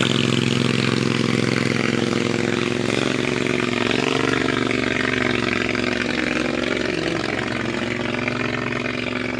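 An engine running steadily, its pitch wavering slightly partway through.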